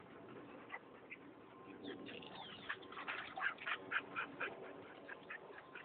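A dog yipping in play: a quick run of short yips, about four a second, starting about two seconds in.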